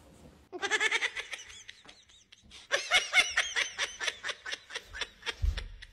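People laughing: a short high laugh about half a second in, then a longer run of quick rhythmic laughter, with a brief low thump near the end.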